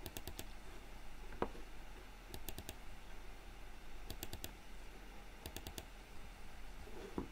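Computer mouse buttons double-clicking: four short groups of quick, sharp clicks, with a single click between the first two groups.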